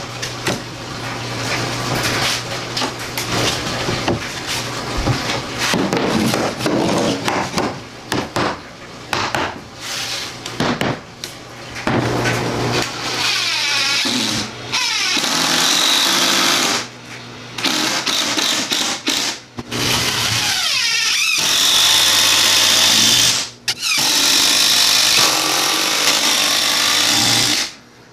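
DeWalt cordless driver driving screws into a plywood subfloor patch, in repeated runs of a few seconds each that stop abruptly, with short pauses between.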